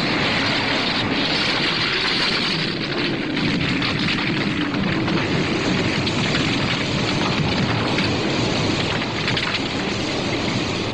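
Steady, loud rushing of water, as from a waterfall and river rapids.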